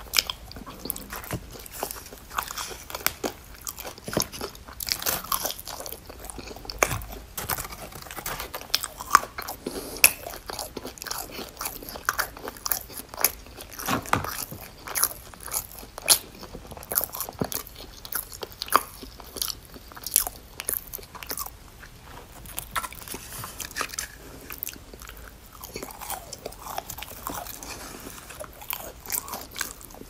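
Close-up mouth sounds of a person biting and chewing crispy fried food, with many irregular crunches throughout.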